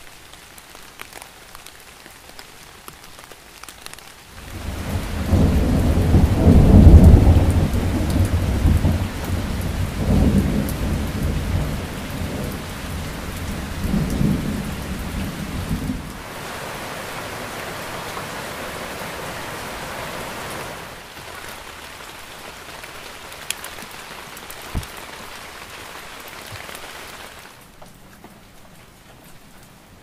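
Steady rain falling on leaves. Rolls of thunder start about four seconds in, swell to a loud peak and rumble on in waves before cutting off suddenly midway. After that only softer rain goes on, with a couple of brief ticks.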